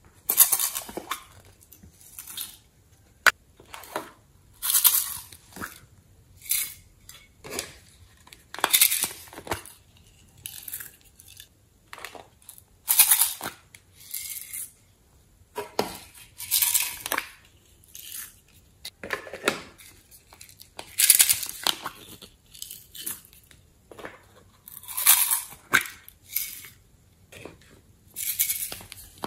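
Small plastic containers being tapped and emptied, loose sequins and glitter rattling out onto slime in a plastic tray, in short bursts every second or two, with a sharp click about three seconds in.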